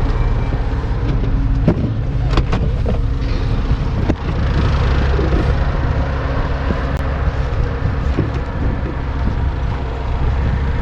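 4x4 vehicle driving, its engine a steady low drone, with a few sharp knocks and rattles about two to four seconds in.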